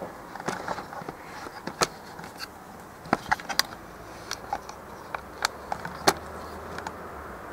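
Irregular sharp clicks and taps from a handheld camera being moved, over a steady low background rumble. A faint low hum joins about five seconds in.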